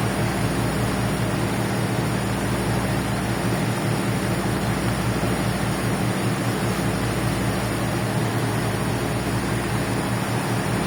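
A ferry's engines droning steadily, a low hum with an even rushing noise over it.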